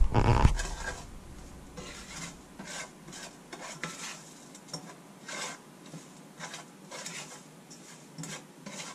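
A spatula scraping and stirring minced onions around a nonstick frying pan, in irregular short strokes. A brief loud bump opens it.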